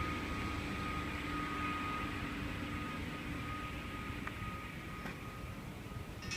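Construction machinery running steadily: an engine rumble with a steady whine, its lower tone fading away over the first few seconds, and a sharp clack near the end.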